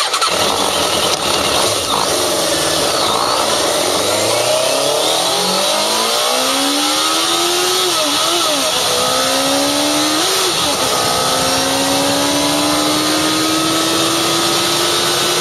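Suzuki RF900's inline-four engine accelerating hard through the gears. The engine note climbs in pitch, drops at two quick upshifts past the middle, then climbs again in one long pull, under a steady rushing noise.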